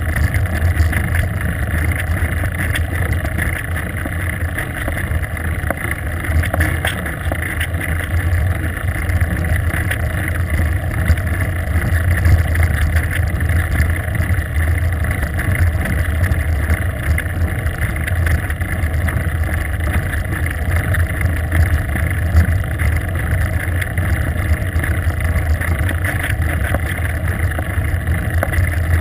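Wind rushing over a bicycle-mounted GoPro camera as the bike speeds downhill on a paved road: a steady, loud rumble with hiss.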